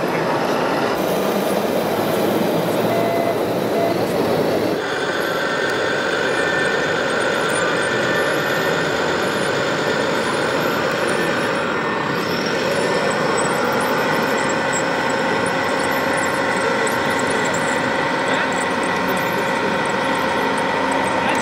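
Remote-controlled model vehicles running: a steady mechanical whine of electric motors and gears over a noisy bed. The sound changes abruptly about five seconds in, and around thirteen seconds in the whine rises in pitch, then holds steady.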